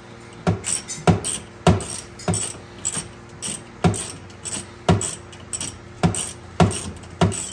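Socket ratchet being worked on a seat-mount bolt: a burst of ratchet clicks on each back-stroke, about two strokes a second, evenly paced.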